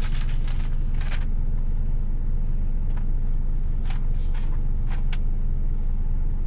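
Scania S500 truck's diesel engine running with a steady low rumble, heard from inside the cab, with a few short clicks or swishes over it.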